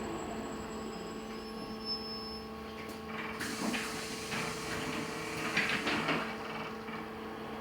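Inside a LiAZ-6274 electric bus at a stop: a steady electrical hum from the bus, with the doors working: a click about three seconds in, then a sudden hiss and door movement.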